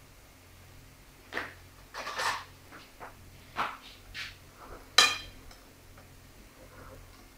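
Scattered light knocks and scrapes of a hand rolling croquettes in breadcrumbs on a ceramic plate, with one sharp ringing clink against the plate about five seconds in.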